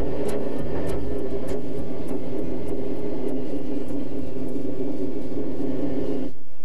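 Electric train running along the track, a steady rumble with a few sharp clicks in the first second or so. The sound cuts off abruptly near the end, and another steady running sound follows.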